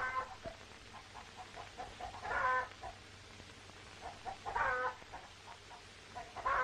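Chickens clucking in a barnyard: a short call about every two seconds, with softer clucks between.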